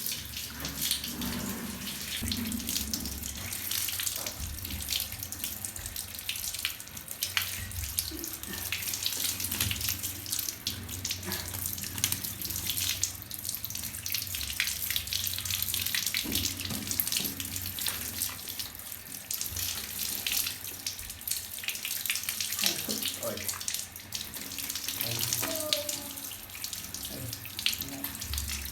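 Water running and splashing steadily, with many small knocks and clicks through it.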